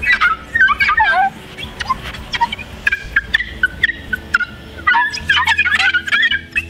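Wet melamine sponge (Mr. Clean Magic Eraser) squeaking as it is scrubbed over a car windshield: irregular runs of short, high squeaks, sparser in the middle and thick again near the end. The squeak is the sign the glass is coming squeaky clean, its grain opened up and the dirt pulled out.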